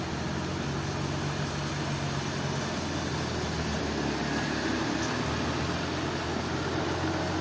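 Sawmill machinery running steadily with a low engine drone under a wash of mechanical noise.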